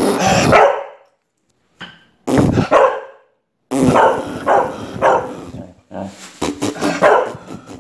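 A corgi barking angrily in several loud bouts, set off by a fart sound.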